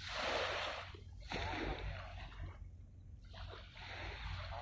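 Small waves washing and splashing at the water's edge in repeated surges, each about a second long, over a steady low hum.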